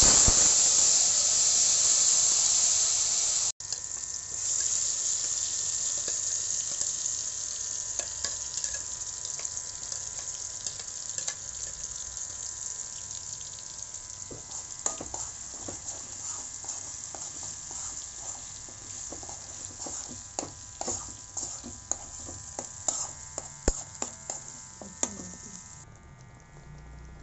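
Ground veld grape (pirandai) paste going into hot tempering oil in a kadai: loud sizzling at first that eases into steady frying. From about halfway through, a spoon clacks and scrapes against the pan as the paste is stirred.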